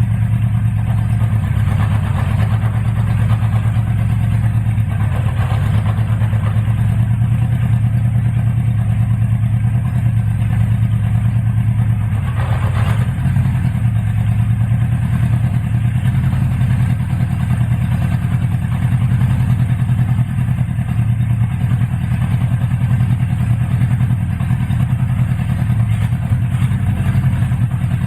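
Honda CB550F's air-cooled inline-four engine idling steadily, a brought-back non-runner on its start test after a new battery and spark plugs.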